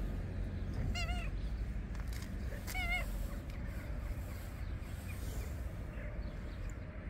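Calico cat meowing twice, short calls about a second and three seconds in, each with a wavering pitch.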